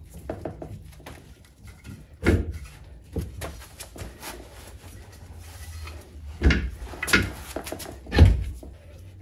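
Several dull knocks and clunks, about five of them and the loudest near the end, from a MerCruiser Alpha One outdrive being handled and shifted against the bell housing and transom assembly.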